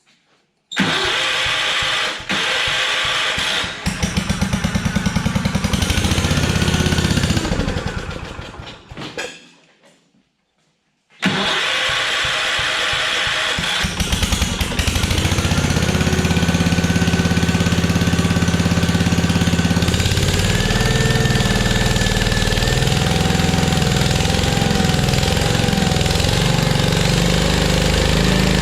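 Kohler K-series single-cylinder engine on a log splitter being cranked and firing. It runs for a few seconds and then dies away about eight seconds in. It is cranked again about eleven seconds in, catches and keeps running, with its speed changing about twenty seconds in. It now starts because its dirty ignition points have been cleaned and regapped, which restored the spark.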